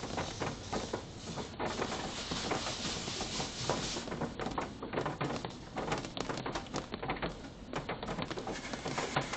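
Water spray from a Coleman Hanna Water Wizard touchless car wash pattering and hissing steadily against the car's body and windows, heard from inside the car.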